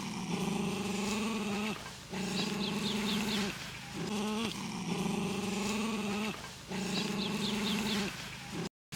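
Goat bleating over and over: about four long, drawn-out bleats, each a second or two long, with short breaks between.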